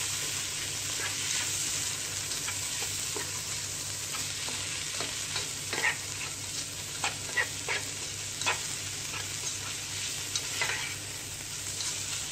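Shredded vegetables and scrambled egg sizzling in a frying pan while a spatula stirs them, with a steady hiss and scattered clicks and scrapes of the spatula against the pan.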